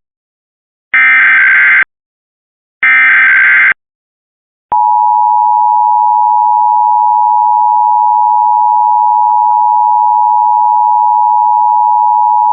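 Emergency Alert System tones: two short warbling digital header bursts, each just under a second, about a second apart. After a short gap comes the steady two-tone attention signal (853 and 960 Hz), starting about five seconds in and holding, which announces an emergency alert message.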